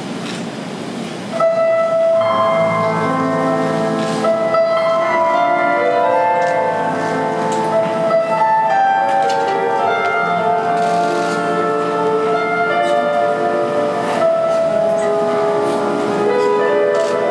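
Free-skate program music begins abruptly about a second and a half in, after a steady background hum, and plays on as a melody of long held notes.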